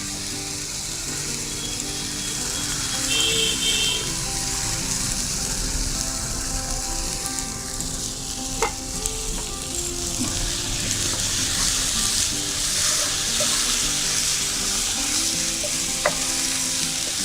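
Ginger, garlic and green chilli paste sizzling as it fries in melted butter with whole spices, stirred in the pan while it cooks until fragrant. A couple of sharp clicks come partway through and near the end.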